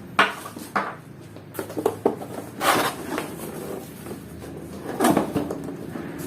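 Packaging and items being handled during an unboxing: a series of short knocks and rustles, with the longest rustle about two and a half seconds in and another knock-and-rustle about five seconds in.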